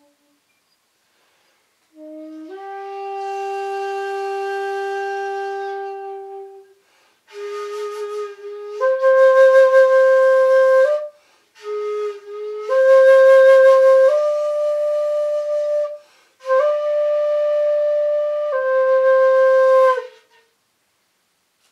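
Shakuhachi, the end-blown bamboo flute, played solo: four breathy phrases of long held notes that step up or down in pitch now and then, with short gaps between them. The first phrase is softer and the later ones louder.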